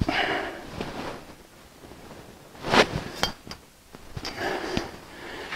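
Metal conduit and a hand conduit bender being handled after a 45-degree bend, with soft handling noise and a few sharp metallic clinks about three seconds in.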